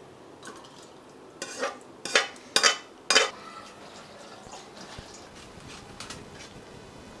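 A metal ladle scraping and clanking against a steel pan as food is spooned out into a steel container: four or five sharp scrapes and clinks, bunched around the first half, followed by a few faint clicks.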